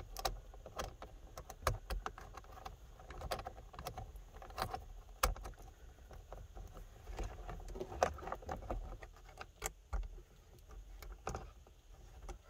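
Irregular small metallic clicks and taps as an Allen key turns a screw on a metal mirror-mount bracket, mixed with handling sounds of fingers on the mount.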